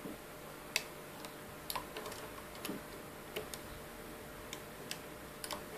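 Hook tool clicking against the plastic pegs of a Rainbow Loom while lifting rubber bands: faint, sharp clicks at irregular intervals, one or two a second.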